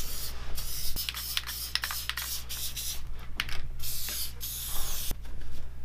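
Aerosol can of spray contact adhesive hissing in several short bursts as it is sprayed on.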